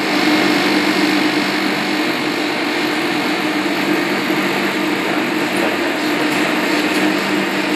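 Steady drone of a commercial kitchen's ventilation: an even hiss with a constant low two-tone hum.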